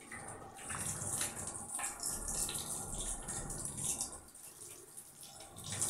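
Water running from a tap into a sink, with irregular splashes as water is scooped up and rinsed over the face.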